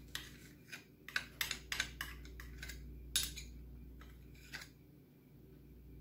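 Metal spoon scraping and tapping against a small glass bowl while thick sauce is scraped out: a series of light clicks and clinks, most in the first three seconds, with one more about four and a half seconds in.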